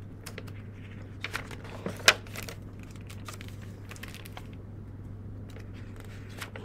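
Pages of a large hardcover picture book being turned and handled: a few short papery rustles and crackles, with one sharp tap about two seconds in, over a steady low hum.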